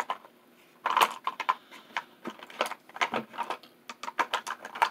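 Light clicks and clatter of small makeup items being rummaged through and handled, in short irregular runs of taps.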